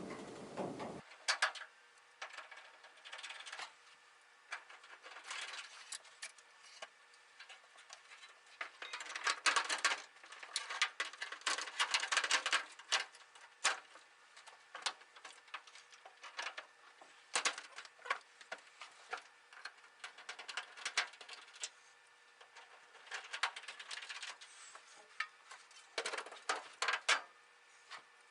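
Irregular flurries of light clicks and metallic ticks as screws are driven back in and panels fitted while a dryer cabinet is reassembled.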